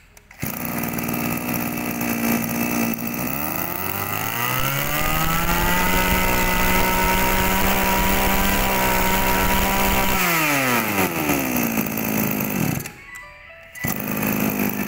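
Zenoah Komatsu BC2300 brush cutter's 23cc two-stroke engine running. It idles, is throttled up to high speed for about five seconds, then drops back to idle.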